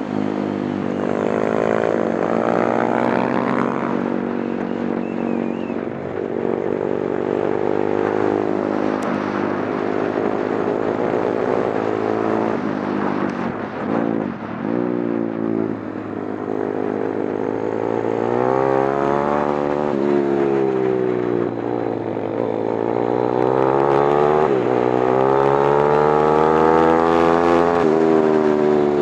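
Motorcycle engine heard from on board while lapping a track, its pitch climbing under acceleration and falling away into corners several times, with the highest, longest revs near the end.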